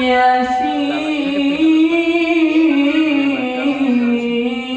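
A solo voice chanting the Quran in a melodic recitation style, holding one long ornamented note that slowly rises and falls without a break.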